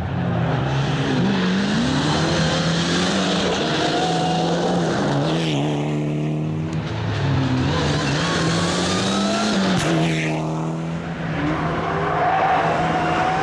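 Mitsubishi Lancer Evolution X rally car's turbocharged four-cylinder engine at hard throttle through a loose corner. The revs climb and fall back sharply with each gear change, twice, over a steady rush of tyre and gravel noise.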